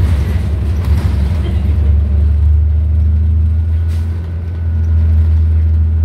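Cabin sound of a New Flyer XDE40 diesel-electric hybrid bus under way, with its Cummins ISL9 diesel and Allison EP40 hybrid drive giving a steady low drone over road noise. A faint steady high whine comes in about halfway through.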